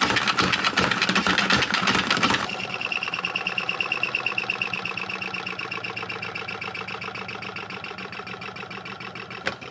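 A small motorised appliance buzzing with a fast rattling pulse. About two and a half seconds in it changes to a steadier, higher-pitched whirr that gradually fades.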